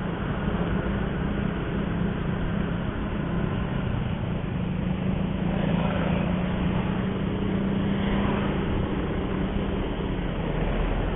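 Steady engine hum and road noise of a vehicle moving through traffic, with faint passing sounds from other traffic about midway.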